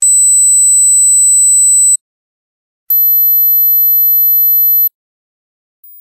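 High-pitched pure test tones of an age hearing test. An 8 kHz tone sounds for about two seconds, meaning normal hearing if heard. After a short gap a 12 kHz tone sounds for about two seconds, audible to those probably under 50. Near the end a much fainter 15 kHz tone begins, audible to those probably under 40.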